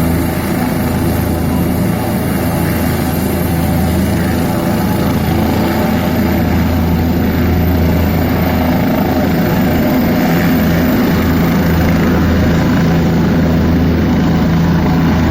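Helicopter running steadily: a loud, even mechanical drone with a low hum.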